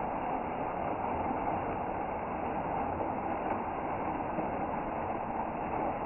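Small waterfall: a thin stream of water falling down a rock face, a steady, even rush without change.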